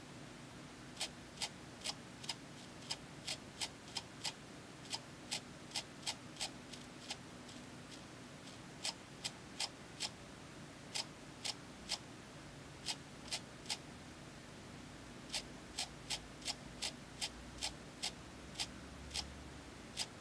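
Xperia Z1 smartphone's vibration motor giving sharp clicks, about two or three a second in runs with short pauses between, an abnormal sound that the owner takes for a failing vibrator.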